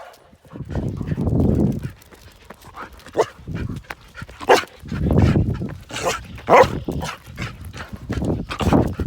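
German shepherd and Australian shepherd dogs vocalising eagerly, wanting to go: short sharp barks and yips mixed with three longer, lower sounds about a second each.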